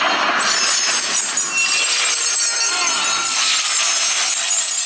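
Movie sound effects of glass shattering and debris crashing, with clinking shards and whooshing glides, played back through the HTC One's front stereo speakers.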